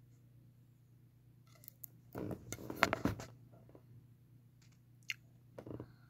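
Plastic pop tube being stretched and squashed, its ridged sections popping in a crackling run about two seconds in, then a single sharp click and a short crackle near the end.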